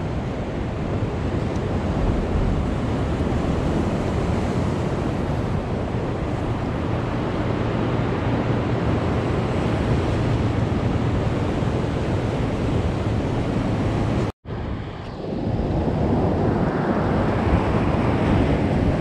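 Ocean surf churning against a rock breakwater, a steady rushing wash with wind buffeting the microphone. The sound cuts out for a split second about fourteen seconds in, then resumes.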